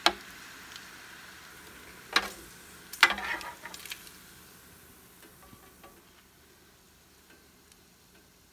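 Metal tongs clacking and scraping against the Ninja Foodi Grill's grate while lifting out cooked bacon: three sharp clacks in the first three seconds with a short rattle after the last, then a few fainter taps. Under them, a faint sizzle of hot bacon fat dies away.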